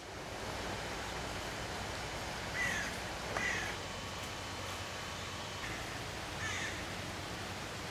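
A bird calling three times, short calls that slide downward in pitch, over steady background noise.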